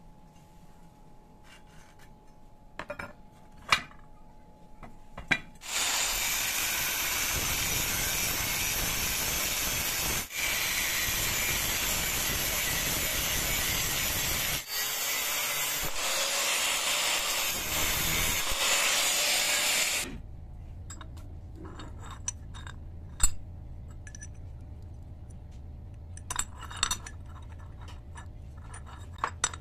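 Angle grinder with a cut-off disc cutting into steel. It runs loud and steady for about fourteen seconds, with two brief breaks, and stops suddenly. Light clicks and taps of steel pieces being handled come before and after.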